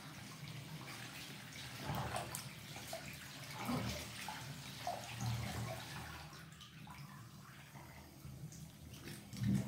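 Water sloshing and splashing in a filled bathtub as a foot treads on shoes soaking in it, in uneven surges, the loudest near the end.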